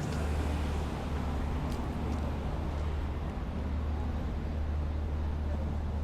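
City street ambience: a steady low rumble of road traffic with a faint wash of background noise, and a couple of faint ticks about two seconds in.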